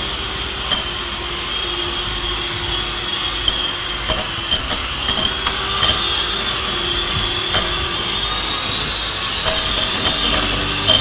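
Electric hand mixer running steadily, its beaters creaming a cup of butter in a glass bowl, with scattered sharp clicks and knocks that come more often near the end.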